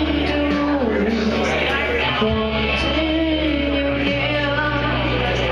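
A boy singing karaoke into a microphone over a recorded backing track, holding and bending long notes above a steady bass line.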